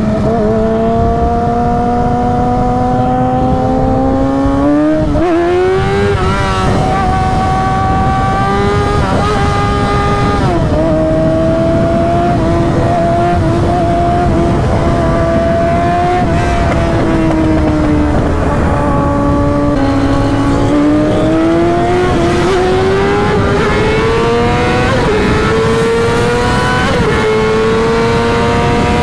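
A vehicle engine running under way, its pitch climbing slowly, dropping about ten seconds in and again near twenty seconds, then climbing again with throttle and gear changes.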